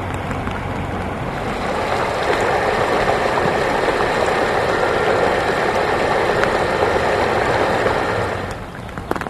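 Rushing floodwater pouring across a street in a steady wash, louder from about two seconds in and falling away near the end.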